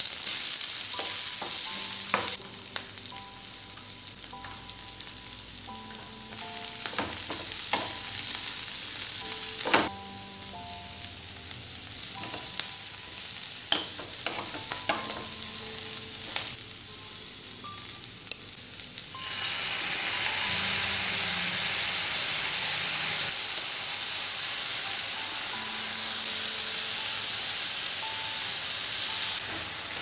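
Onions, then shredded cabbage and other vegetables, sizzling in hot oil in a nonstick frying pan while a wooden spatula stirs them, with a few sharp knocks. The sizzling grows louder about two-thirds of the way through.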